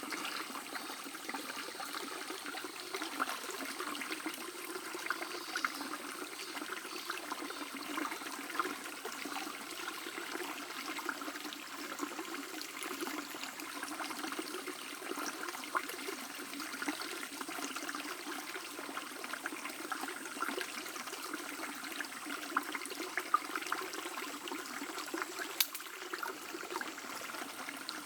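A small stream babbling and trickling over stones, a steady busy gurgle of water.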